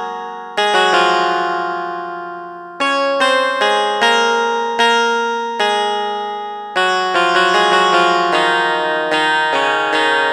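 Notes and chords played on a Nekter LX61+ MIDI keyboard sounding an instrument tone, each note starting sharply and dying away.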